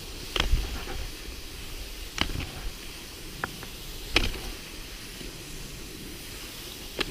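Cross-country skis sliding over packed snow, a steady hiss with wind rumbling on the microphone, broken by about five sharp clicks.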